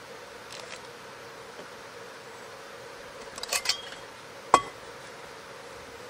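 Camp coffee gear being handled in a drawstring bag: a few light clicks, then one sharp clink with a brief metallic ring as the pieces knock together.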